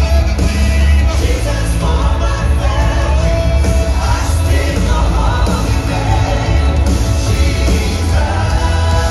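Live worship band and a group of singers performing through a PA, voices over keyboard, guitar and drums with a heavy bass.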